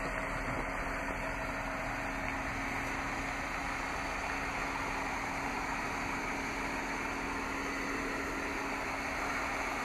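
Steady background noise with a constant low hum, unchanging throughout.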